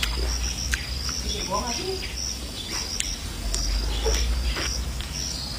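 Insects chirping in repeated short trills, with a person's chewing and eating sounds over them and a few sharp clicks.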